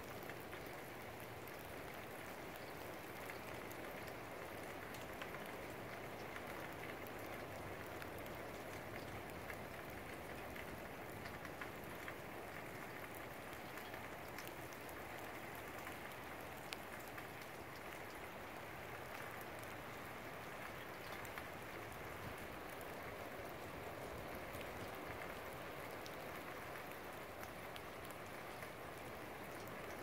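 Steady rain falling: an even hiss with scattered drops ticking on nearby surfaces.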